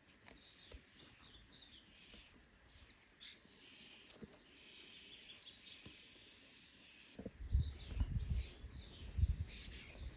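Wild birds chirping and twittering faintly in the background. About seven seconds in, a louder low rumbling sets in and comes and goes.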